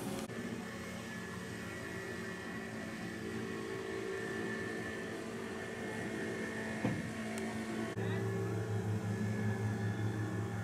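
Steady low machinery hum from the ship, with several held tones. It shifts and grows louder about eight seconds in.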